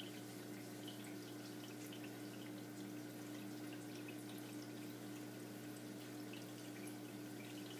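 Faint, steady aquarium water circulation: a constant low pump hum with light trickling and dripping water.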